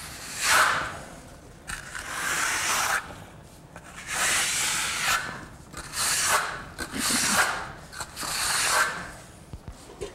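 Trowel spreading wet lime plaster (intonaco) over a wall in a series of scraping strokes, each about a second long.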